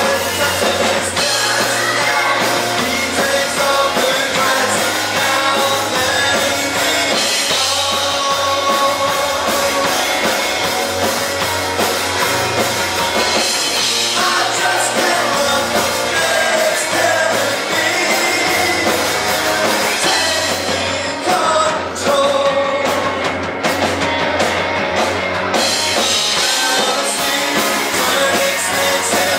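Live rock band playing: electric guitars and drum kit with a singer, loud and steady.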